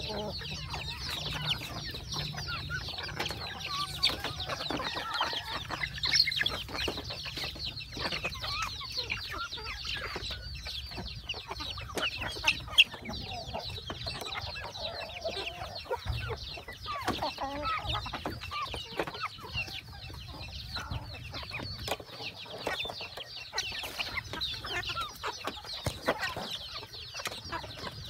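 A flock of chickens feeding: hens clucking on and off while chicks peep continuously in short, high chirps.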